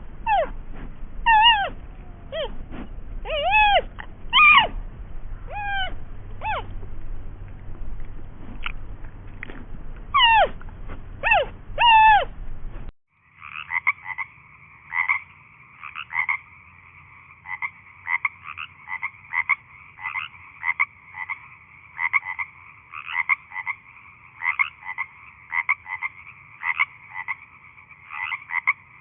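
Animal calls. For about the first thirteen seconds there are separate short calls that rise and then fall in pitch, some in quick pairs. After a sudden change there is a dense chorus of rapid, repeated chirping calls at two steady pitches.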